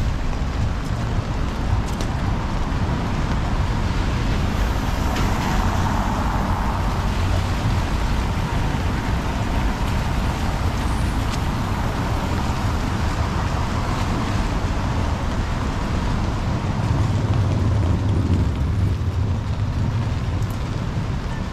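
City street traffic on wet roads: a steady hiss of tyres and rain under the low rumble of engines. A vehicle passes about five to seven seconds in, and a heavier low engine rumble swells near the end.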